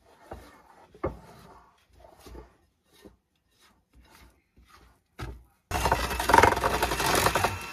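Silicone spatula scraping and tapping soft cookie dough against the sides of a glass mixing bowl, then, near the end, a KitchenAid electric hand mixer switching on and running with its beaters churning the thick dough, much louder than the scraping.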